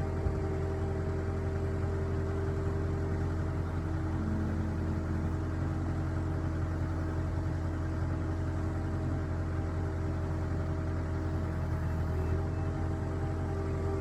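Engine of a heavy machine running at a steady speed, an even drone.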